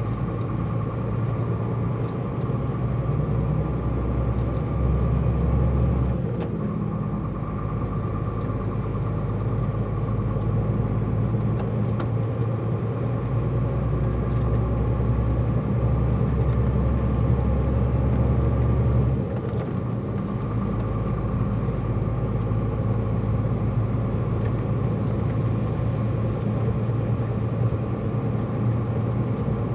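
Truck's diesel engine droning with road noise, heard from inside the cab while driving. The low engine note swells briefly about five seconds in, and again for several seconds from about thirteen to nineteen seconds in, before dropping back.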